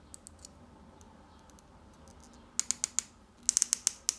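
Sharp clicks and ticks of small action-figure parts being handled and fitted together by hand. A run of four comes about two and a half seconds in, then a quick cluster of about six near the end.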